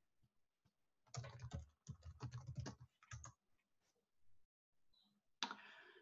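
Faint typing on a computer keyboard: a quick run of keystrokes lasting about two seconds as a password is entered, then a single click near the end as the login is submitted.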